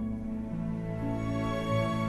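Slow, gentle background music of long held notes, with new low notes coming in about half a second and one second in.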